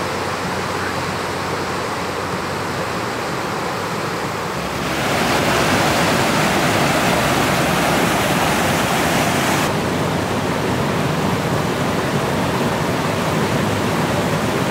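Rushing water of a mountain creek cascading over rocks: a steady rush that gets louder about five seconds in.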